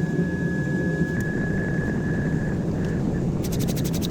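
Forge running steadily while a knife blade heats before quenching, with a thin high whine that fades out about two and a half seconds in. Near the end a fast, even scratching starts.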